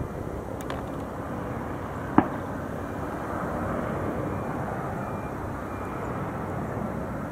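Distant jet engines of an Airbus A320-232 (IAE V2500 turbofans) on landing approach: a steady rush of noise that grows slightly louder. A single sharp click about two seconds in.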